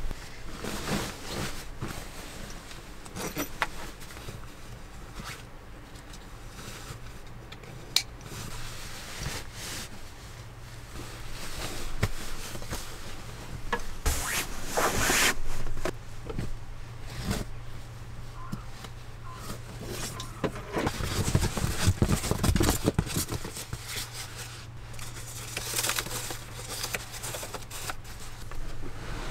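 Bedding and gear handled in a small camper cabin: fabric rustling and rubbing, with scrapes and a few sharp knocks, over a steady low hum. Near the end a ridged foam sleeping pad is folded up.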